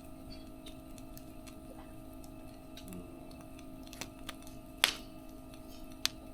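Wood fire crackling: irregular small pops and clicks, with two louder sharp cracks near the end, over a faint steady hum.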